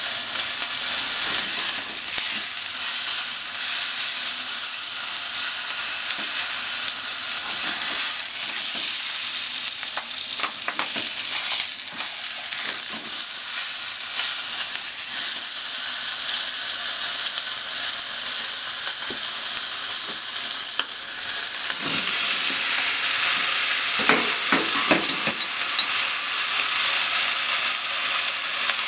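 Chicken, then chunks of potato and sliced onion, frying in a nonstick frying pan: a steady sizzle, with a few bouts of scraping and clicking as chopsticks move the food. The sizzle grows fuller about two-thirds of the way in.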